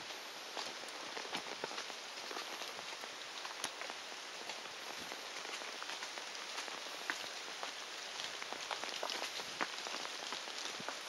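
Rain pattering: a steady hiss with many scattered, irregular sharp taps.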